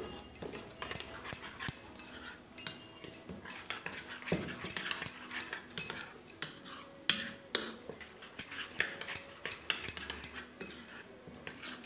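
A steel spoon stirring thick semolina and yogurt batter in a plastic bowl, scraping and knocking against the bowl in quick, uneven strokes.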